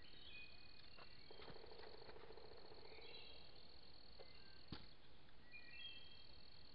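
Faint chorus of evening insects: crickets keep up a steady high trill, with short chirps over it. A low buzzing trill runs for about two seconds, starting a second or so in, and there are a couple of faint taps.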